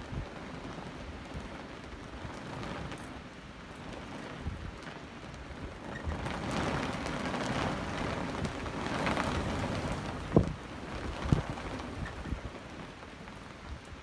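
Strong wind gusting and buffeting the microphone, swelling about halfway through, with two sharp thumps about a second apart after that.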